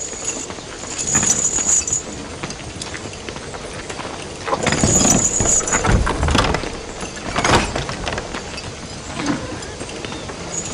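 Iron shackle chains clinking and rattling, with a few heavy knocks, the loudest about five and seven and a half seconds in.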